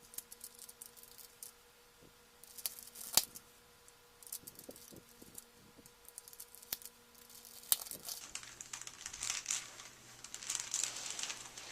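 Plastic Rubik's Cube pieces clicking and rattling in the hands as the disassembled 3x3 cube is snapped back together. Scattered sharp clicks, growing busier from about eight seconds in.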